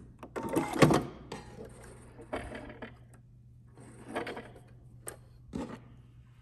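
Handling sounds at a stopped sewing machine: a few sharp clicks and knocks, the loudest about a second in, as the sewn lace cup is pulled out from under the presser foot, with softer taps and rustles of the lace after. A faint steady low hum runs under them.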